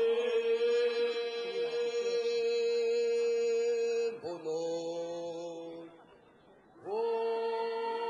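Bunun sowing-festival chant: voices holding long, steady notes. The first is held about four seconds, a second follows at a shifted pitch, and after a brief pause a third begins about a second before the end.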